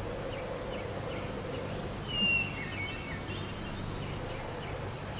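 Outdoor field ambience: steady background noise, with a bird chirping a few short notes about two seconds in.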